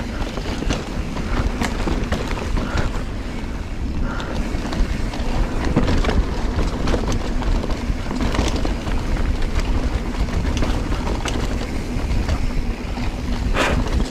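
Giant Trance full-suspension mountain bike riding fast down a dirt singletrack, with wind on the microphone and the rumble of the tyres on dirt. Frequent clicks and rattles come from the bike over roots and bumps, with one louder clack near the end.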